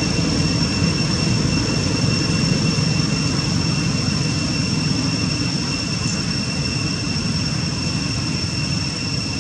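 Steady background noise: a low rumble with a constant high-pitched whine at two pitches over it, unchanging throughout.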